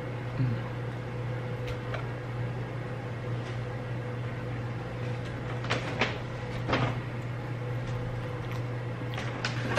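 A steady low hum of room equipment, with a few soft clicks and rustles about two, six and seven seconds in.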